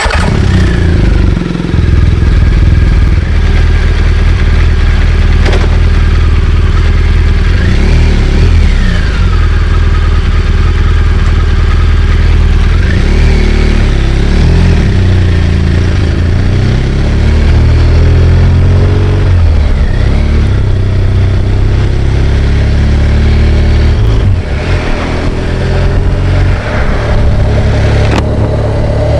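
BMW R1200GS Adventure's boxer twin engine running under way, its pitch rising and falling as the bike accelerates and eases off, with wind and road noise over it.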